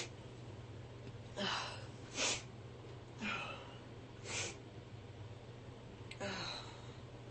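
A woman sniffing and drawing short breathy breaths between sneezes, her nose still tickling: five short sounds spread about a second apart.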